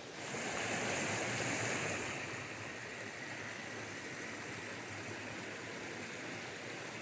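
Steady rush of a stream flowing through a wooded gorge, coming in suddenly and easing slightly after about two seconds.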